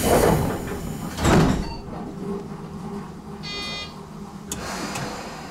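Sliding doors of a Tobu 10030-series commuter train closing with two heavy thuds, then a brief buzzer tone and a sharp click as the train readies to depart.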